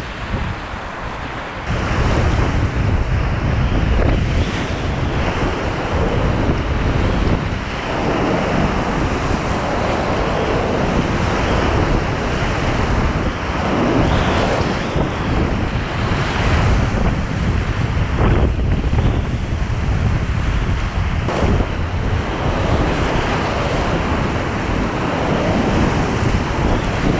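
Loud rushing whitewater of a river rapid heard from a kayak running it, with water and wind buffeting the camera microphone. The rush grows louder about two seconds in as the boat drops into the white water.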